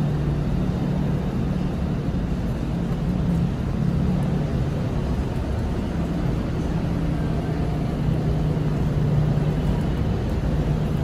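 A steady low mechanical hum over a constant rumble, holding level with no breaks.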